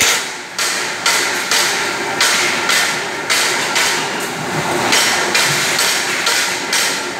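Metal roll-forming line with a 40-ton flying shear press at work: sharp metallic bangs repeating evenly about twice a second, over the steady running of the machinery.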